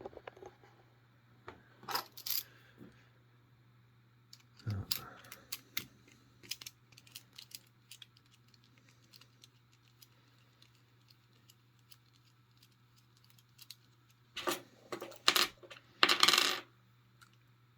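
Small metal padlock parts clicking and clinking as an American Lock 5200 padlock is taken apart. Scattered light taps run throughout, with a few louder clatters near the end.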